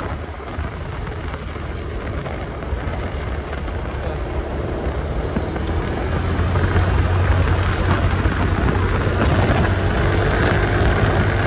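Vehicle in motion, heard from on board: a steady low engine rumble with road and wind noise, growing slightly louder.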